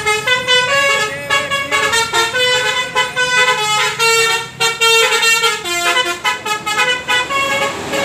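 A bus's multi-tone 'basuri' telolet horn playing a tune: a quick, loud run of distinct notes, one after another.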